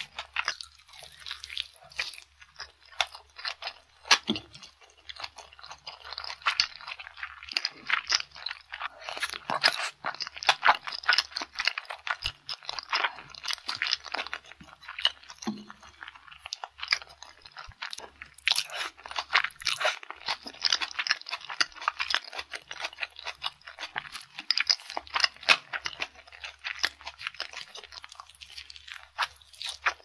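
Close-miked eating sounds: a rice ball studded with seaweed flakes and marinated raw salmon and shrimp being chewed, with dense, rapid, irregular wet clicks and smacks of the mouth.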